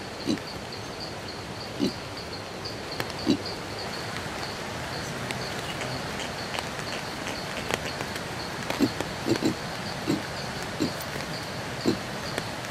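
Rainforest ambience: a steady, pulsing high-pitched insect trill, with about nine short low calls at uneven intervals, most of them bunched in the second half.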